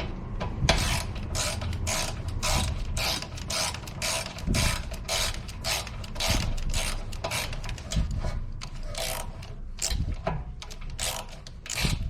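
Ratchet clicking in short, evenly repeated back-strokes, about two a second, as a 7 mm hex socket unscrews a rear brake caliper guide bolt.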